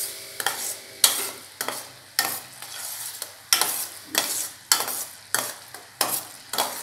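A spoon stirring boiling unrefined-sugar syrup in a stainless steel pan: a swish and scrape with each stroke, about one and a half strokes a second, over the steady bubbling of the syrup.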